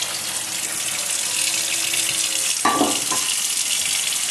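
Cold water running from a kitchen tap over freshly blanched pork liver as it is rinsed, with a short knock about three seconds in.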